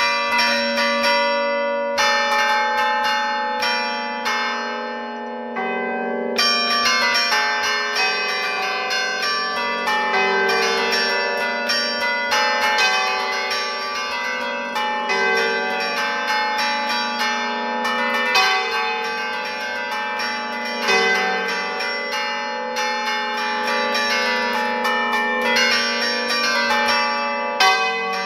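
Bronze church bells played by hand from a wooden lever keyboard, ringing a quick tune of overlapping strokes that hang on and blend. The ringing starts abruptly, eases for a moment about five seconds in, then carries on busily.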